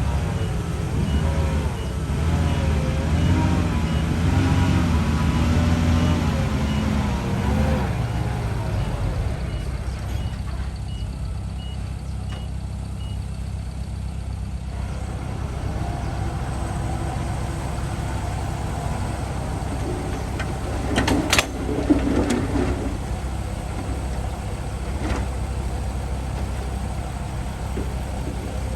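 Heavy diesel machinery working: a dump truck and bulldozer engine whose note rises and falls under load for the first several seconds, then settles to a steadier run. A reversing alarm beeps about twice a second early on, and a short sharp hiss comes about twenty-one seconds in.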